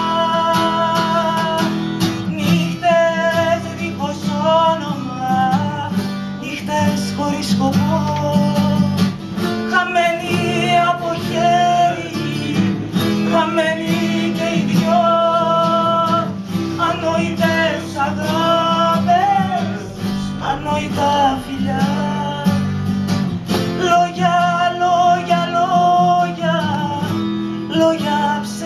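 A woman singing a slow Greek popular song with an acoustic guitar accompanying her.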